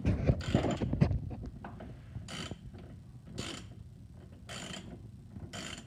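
Socket ratchet tightening the mirror's mounting bolts inside the door. A clatter of knocks from handling comes in the first second, then four short ratcheting strokes about a second apart.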